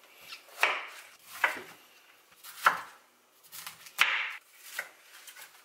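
A chef's knife chopping a head of cauliflower on a wooden cutting board: about five separate chops, irregularly spaced about a second apart.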